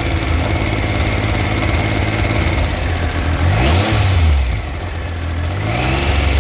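2000 Triumph 955i Sprint's inline-three engine running with a persistent ticking, held at raised revs, dropping back to idle a little past the middle, then revving up again near the end. The owner has replaced the cam chain and its tensioner without curing the tick and suspects the cam chain guides.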